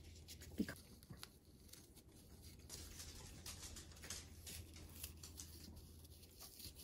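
Faint crackling of a freeze-dried raw dog-food patty being crumbled by hand into dog bowls, with one sharper click about half a second in.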